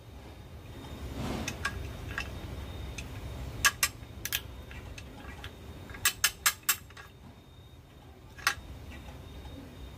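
Sharp metal clicks and clinks from a homemade steel lever-press tool being worked to crack and scoop out kepayang (Pangium edule) seeds: scattered single clicks, a quick run of four about two-thirds through, and one more near the end.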